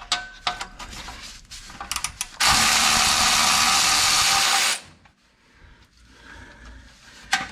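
Cordless electric ratchet running steadily for about two seconds and then stopping, spinning out a splash-guard bolt. Light metal clicks of the socket and extension being fitted come before it.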